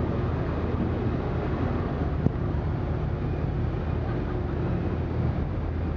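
Steady hum of the docked ferry Puyallup's engines and onboard machinery, with one sharp click a little past two seconds in.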